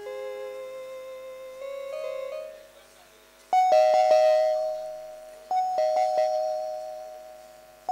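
Soft music with a slowly rising line of notes, then, about three and a half seconds in, a doorbell sound effect chimes: a higher note falling to a lower one and ringing out. It chimes again about two seconds later.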